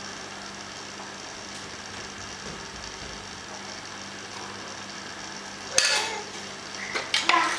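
Sharp clicks and clatters of a plastic toy activity table being handled and knocked, once about three-quarters of the way in and a few more just before the end, over a faint steady hum.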